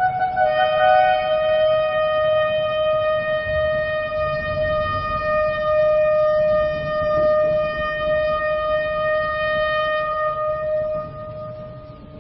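A shofar (ram's horn) sounding one long blast: it begins on a lower note, jumps up about half a second in, then holds one steady note for about ten seconds before fading out near the end.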